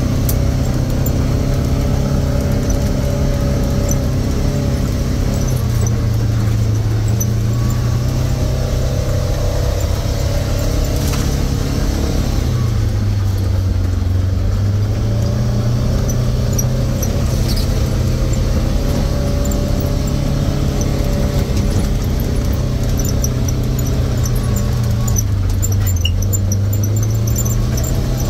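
Side-by-side utility vehicle's engine running as it drives slowly along a dirt trail, its pitch dropping and rising again a few times with the throttle. Light high squeaks come in near the end.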